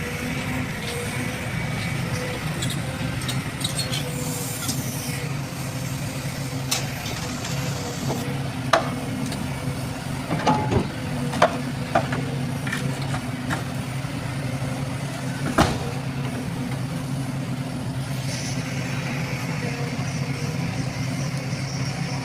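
Heavy earthmoving machine's engine running steadily, with several sharp metallic clanks around the middle.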